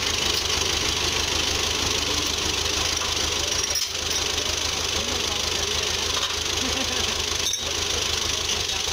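Fiat 640 tractor's diesel engine running steadily while hitched to a loaded sugarcane trolley stuck in mud, with two very short dips about four and seven and a half seconds in.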